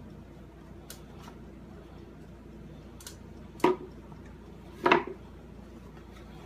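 Wooden mold pieces being handled and pressed together around a wad of hot HDPE plastic: a few faint clicks, then two louder wooden knocks a little over a second apart, past the middle. A faint steady hum runs underneath.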